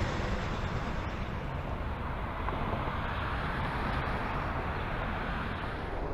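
Steady road traffic noise: the rushing of a vehicle driving past on the road.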